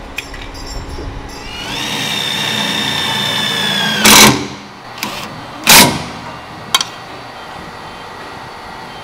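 A small power tool's motor whirs up to speed and runs steadily for about two seconds. Then come two short, loud bursts of noise about a second and a half apart, and a sharp click.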